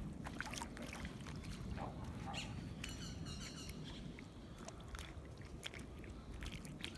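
Footsteps on wet tidal mud, with scattered small clicks over a low rumble. A bird gives a quick run of high chirps about three seconds in.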